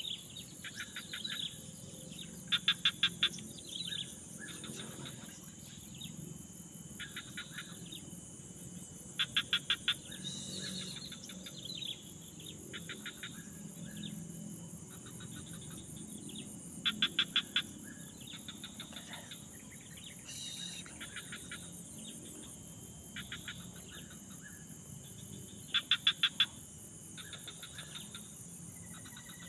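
Swamp ambience: insects shrilling steadily in a high register, while an animal, bird or frog, calls over and over in short trains of rapid pulses. The loudest trains come about every seven to eight seconds, with fainter ones in between, and a couple of brief rising bird chirps.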